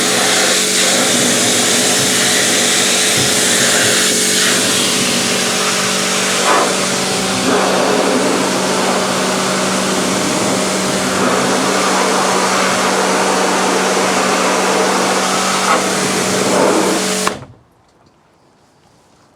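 AVA Evolution P80 pressure washer running, a steady motor hum under the loud hiss of the water jet blasting a plastic wheelie bin clean; the spray and motor cut off abruptly near the end.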